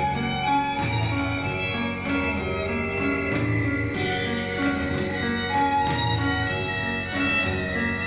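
Instrumental music led by bowed strings, with a sharp accent about halfway through.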